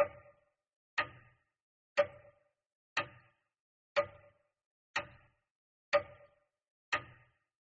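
A clock ticking once a second: eight sharp, evenly spaced ticks, each with a brief ring that dies away before the next.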